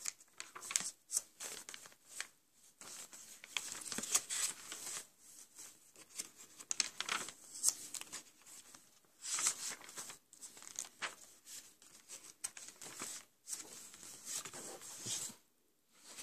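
Sketchbook pages turned by hand one after another: paper rustling and crackling in irregular swishes, with a short pause near the end.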